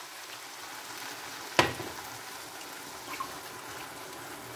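Water hissing and trickling in a hot frying pan of rice and vegetables just after a cup of water has been poured in. There is a sharp knock about a second and a half in and a lighter click about a second later.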